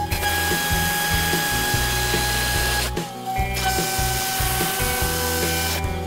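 CNC router spindle whining steadily as its small end mill cuts circular grooves into a speaker-grill front panel, with a hiss of cutting noise that stops briefly about three seconds in.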